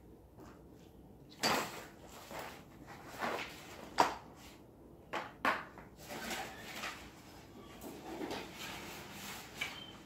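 Things being handled and set down: an irregular series of knocks, clatters and rustles, the sharpest knock about four seconds in.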